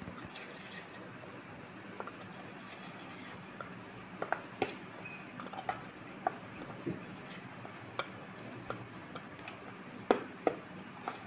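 A metal spoon stirring dry gram-flour mix in a steel bowl, giving soft scrapes and scattered irregular clinks against the bowl, the sharpest just after ten seconds in.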